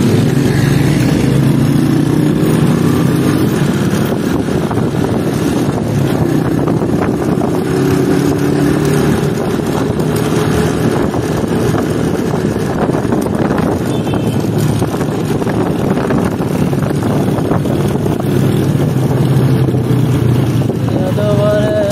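Old Honda motorcycle's engine running as the bike pulls away and rides through city traffic. Its pitch climbs over the first several seconds as it speeds up, then holds steady while cruising.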